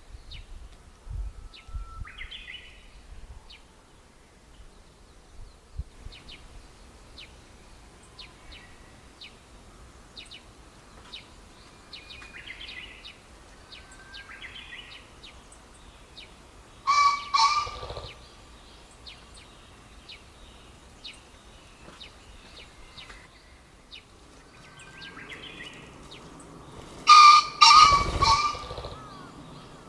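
Male green pheasant crowing: two loud, harsh calls of two or three quick notes each, about ten seconds apart. Smaller birds chirp faintly in between.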